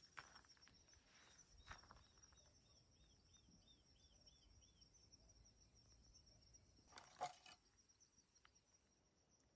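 Near silence in quiet countryside: a faint steady high-pitched insect drone, with a faint run of about nine repeated chirps about two seconds in. There is a soft step early on and a single sharp crunch about seven seconds in.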